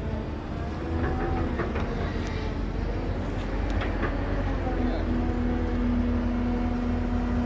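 Caterpillar 312B hydraulic excavator working: its diesel engine runs with a steady low rumble. A few light clanks come in the first half, and a steady whine holds through the last couple of seconds.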